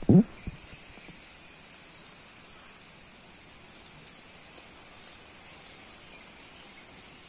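Steady high insect chirring over a faint outdoor background, opened by one short, loud call in the first half-second.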